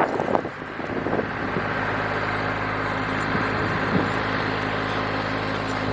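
Tractor engine running at a steady speed, its low hum settling in about a second in, as the tractor levels ruts in a dirt driveway.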